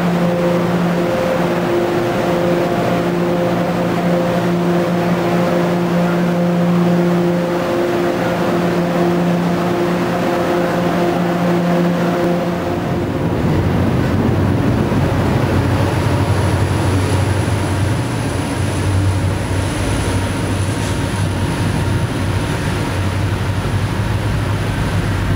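Commuter trains standing at an enclosed station platform, heard as a steady engine hum with several even tones. About halfway through it changes abruptly to a deeper, rougher rumble from an MBTA diesel locomotive's engine running at the platform, with a thin high whine above it.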